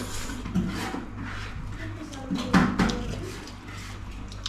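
Close-up eating sounds of a mukbang meal of rice eaten by hand: chewing and mouth noises with a few short sharp clicks.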